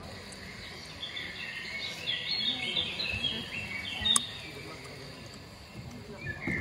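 Birds chirping: a run of short, high chirps over a faint murmur, with a single sharp click about four seconds in.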